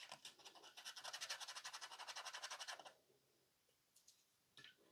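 Small wire brush scrubbing corrosion off the CRT ground springs on a monitor circuit board: quick, even back-and-forth scratching strokes that stop about three seconds in.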